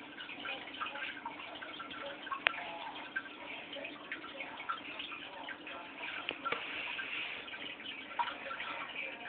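Aquarium water trickling and dripping, an irregular patter of small splashes over a steady low hum, with one sharp click about two and a half seconds in.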